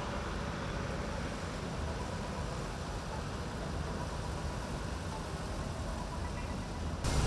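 Steady low rumble of cars driving in a slow procession: engines running and tyres on the road, heard from a moving vehicle.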